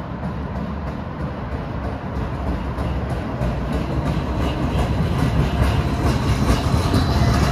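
Brookville Liberty NXT streetcar running on its own power along street track, a low rumble on the rails that grows steadily louder as the car approaches and passes close by.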